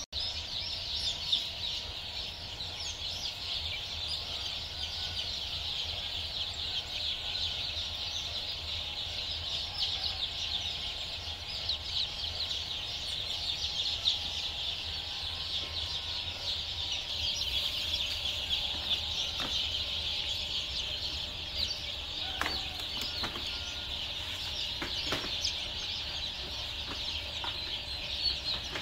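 A mass of newly hatched chicks peeping continuously, many high-pitched cheeps overlapping, over a steady low hum. A few light knocks come about two-thirds of the way in.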